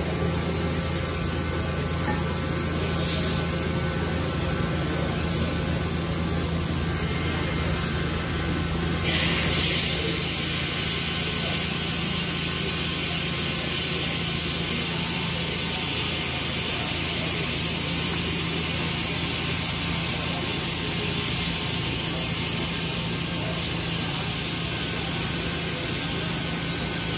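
Steady mechanical hum with an even hiss, typical of workshop machinery running. The hiss brightens noticeably about nine seconds in, with a brief louder burst as it does, then stays at that level.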